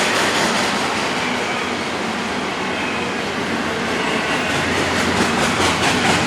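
Freight train rolling past, a steady loud rumble of wheels on rail with clickety-clack from the wheels, more distinct near the end.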